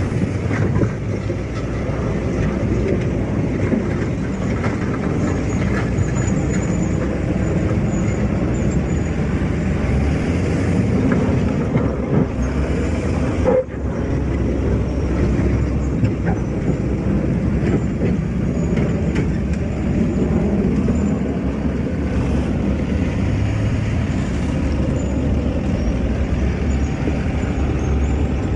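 Excavator's diesel engine running steadily under load, with repeated metallic clanks and rattles of the machine working. The sound drops out for an instant about halfway through.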